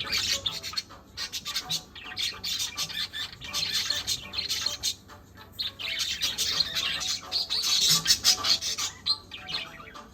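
Small parrots chattering and squawking, a dense run of rapid, short, high calls with brief lulls.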